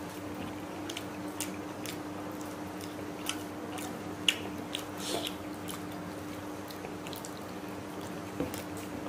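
Fingers mixing fried rice into chicken curry on a paper plate: sparse wet squishes and small clicks, the sharpest about four seconds in, over a steady low hum.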